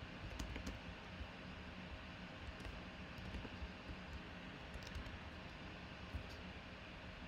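Faint, scattered clicks of computer keys being typed, over a steady low room hum.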